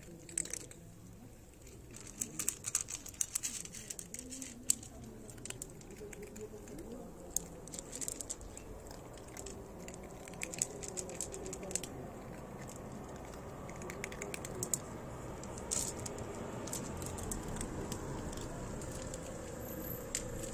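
Cats crunching dry kibble: a run of small, irregular, crisp clicks, thickest in the first half and thinning out later.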